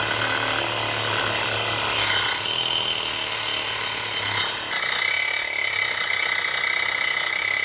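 Ryobi 18-volt cordless reciprocating saw cutting through thick-walled steel pipe, its blade rasping steadily against the metal. A little over halfway through, a steady high-pitched squeal joins in.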